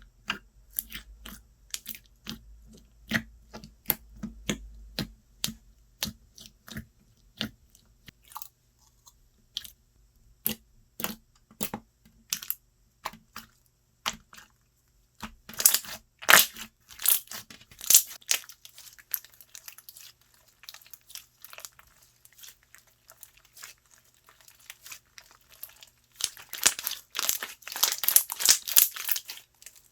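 Slime being worked by hand, giving a string of sharp pops and clicks, with denser crackling clusters about halfway through and again near the end.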